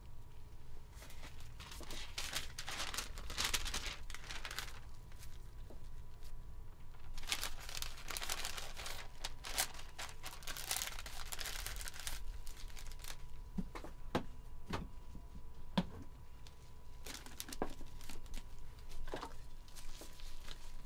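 Crinkling and rustling in two stretches as a rolled crepe is handled and wrapped in a paper crepe sleeve, followed by a run of light taps and knocks. A faint steady high tone runs underneath.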